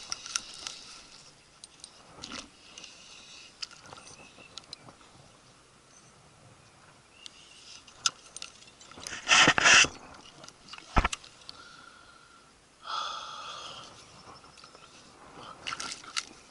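Handling of a spinning rod and reel: scattered small clicks, a short rush of noise about halfway through, a sharp click a second later, then about a second of steady whirring from the reel.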